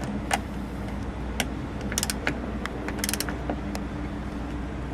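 Torque wrench ratcheting as the outboard lock is tightened to 50 foot-pounds: scattered sharp clicks, some in quick clusters about two and three seconds in, over a steady low hum.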